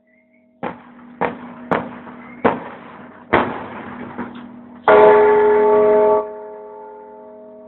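Large bronze church bell rung by hand, its clapper pulled against the rim on a rope: five strikes about half a second to a second apart, then a much louder clang about five seconds in. The bell's hum then slowly dies away.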